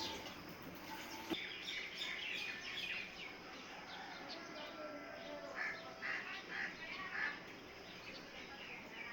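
Chicks peeping in many short, high chirps, busiest in the first few seconds and again about two-thirds of the way through.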